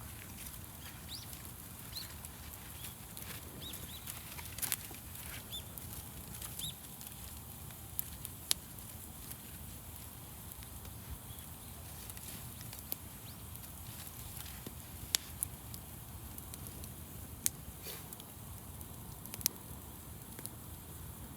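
Wood fire burning, with a steady low rush of flame and irregular sharp crackles and pops scattered throughout.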